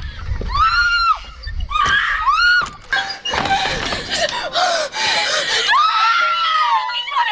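A person screaming in high-pitched cries, one after another: two short screams, then a long drawn-out one near the end.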